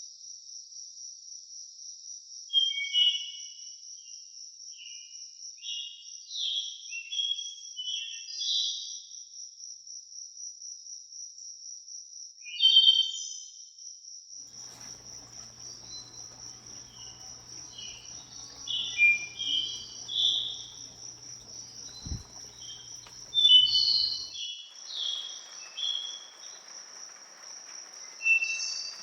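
A steady, high-pitched, rapidly pulsing insect trill, with a songbird singing short warbled phrases every second or so in several runs.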